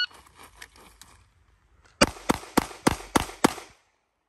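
Six pistol shots from an Atlas Gunworks Athena in quick succession, about three a second, starting about two seconds in. They are fired as a timed string on a shot timer.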